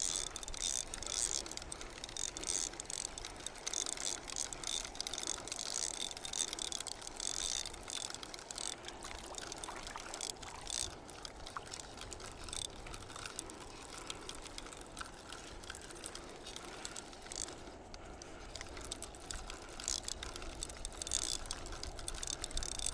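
Fishing reel clicking densely and irregularly as line is worked in against a hooked carp.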